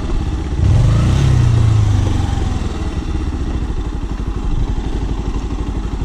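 Motorcycle engine running at low speed on a rough, rocky downhill track. It is louder for about a second, starting just under a second in, then settles to a steady low running.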